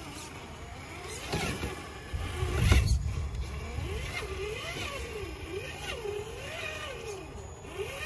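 Traxxas TRX-4 Bronco RC crawler's electric motor and gears whining as it crawls, the pitch rising and falling over and over as the throttle is worked. A louder rumble with a single knock comes about two and a half seconds in.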